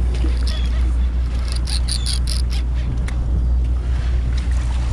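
Sportfishing boat's engine droning low and steady. About two seconds in comes a quick run of about eight high chirps.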